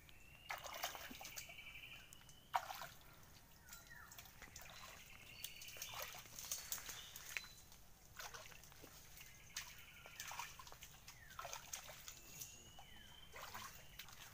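Feet sloshing and splashing as several people wade through shallow muddy water, in irregular bursts. A bird's trilled call repeats every few seconds in the background.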